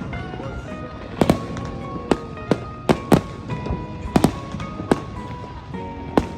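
Fireworks exploding, about eight sharp bangs at irregular intervals, over music with long held notes.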